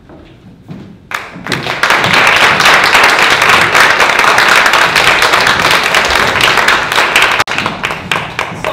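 Audience applauding: the clapping starts about a second in, holds steady, and thins out near the end.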